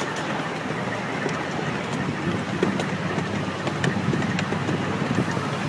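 Amusement park train running along its track, heard from aboard: a steady rumble with scattered faint clicks.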